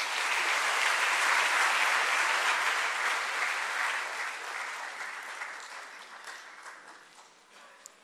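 A large audience applauding, strongest in the first few seconds and then gradually dying away.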